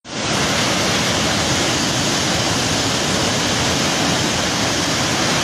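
Muddy floodwater pouring down a rock cliff as a waterfall, a loud steady rush of falling water.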